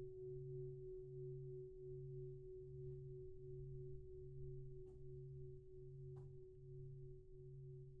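Quiet meditation tone: one steady pure tone held throughout, over a low drone that pulses a little more than once a second. Two faint clicks come about midway.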